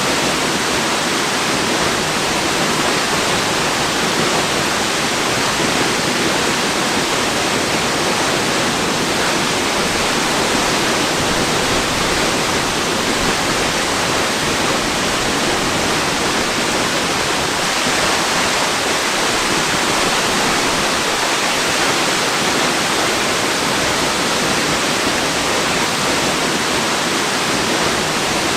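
Waterfall: a steady, even rush of falling water that holds at one level throughout.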